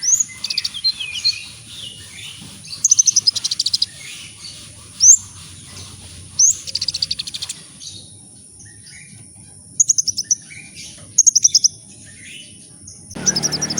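Kolibri ninja sunbird singing: high chirps, quick up-sweeping notes and rapid ticking trills, in phrases with a pause of about a second and a half near the middle. About a second before the end the recording changes abruptly to a noisier one.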